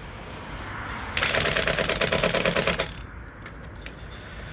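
Impact wrench hammering a wheel's lug nut tight: a rapid, even rattle of blows lasting about a second and a half, starting about a second in.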